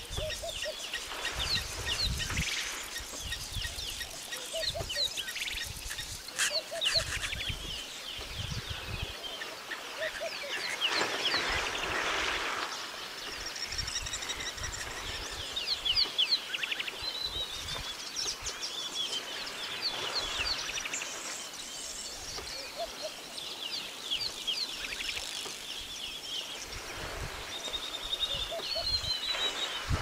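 Many wild birds chirping and calling in quick, high notes throughout. About eleven seconds in there is a stretch of water splashing, as an elephant wallows in the river.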